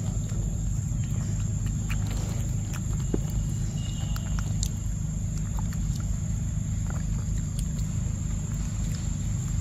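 Macaque biting and chewing a soft fruit, heard as faint scattered clicks. Over it runs a steady low rumble and a thin, steady high whine.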